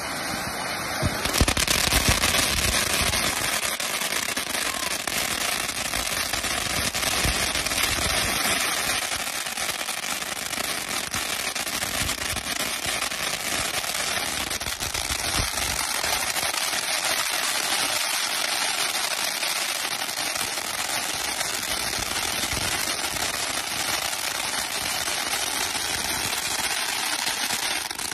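Ground fountain firework spraying sparks: a continuous loud hiss packed with rapid crackling pops, swelling about a second in and then holding steady.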